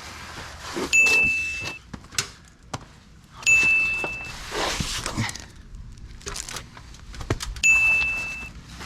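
Three sharp metal-on-metal strikes, each leaving a clear, high ring that dies away in under a second, with small clinks and handling noises between them.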